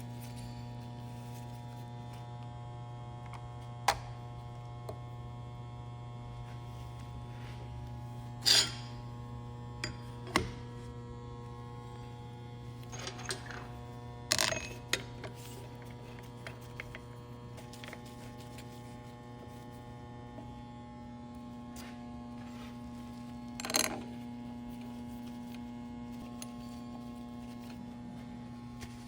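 Steady electrical hum with a few separate sharp clicks and clinks of parts and tools being handled while the diaphragm head of a metering pump is fitted.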